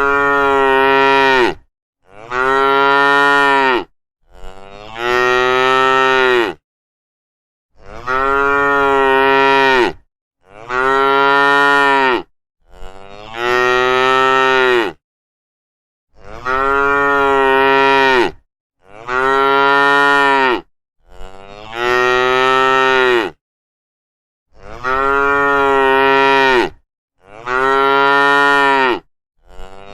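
Cows mooing over and over: about a dozen long, steady moos of roughly two seconds each, with dead silence between them.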